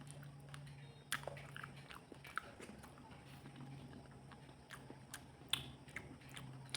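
Close-up eating sounds of a person eating pangas fish curry: quiet chewing with scattered short, sharp mouth clicks, over a low steady hum.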